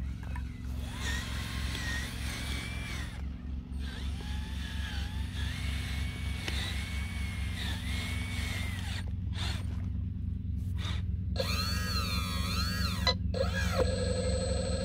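Radio-controlled model Cat excavator and truck at work: a steady, fast-pulsing low rumble under the whine of small electric motors and the hydraulic pump, its pitch gliding up and down as the machines move. From about two-thirds of the way in, a louder wavering whine with a shifting pitch.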